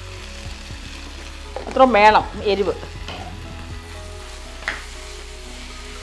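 Vegetables sizzling and frying in a pan while a spatula stirs them, with a brief voice about two seconds in and a single tap of the spatula on the pan near the end.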